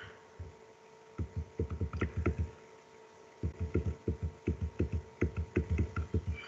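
Computer keyboard typing: two runs of quick, dull key taps with a few sharper clicks among them, over a steady electrical hum.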